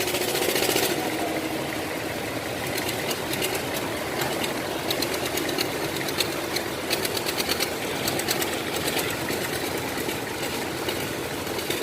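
Heavy machine's diesel engine running steadily, with a fine irregular mechanical clatter over it.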